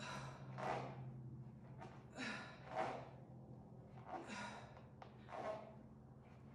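A person breathing hard through a set of dumbbell Bulgarian split squats: short forceful breaths in and out in pairs, three pairs, about one pair per rep. A low steady hum runs underneath.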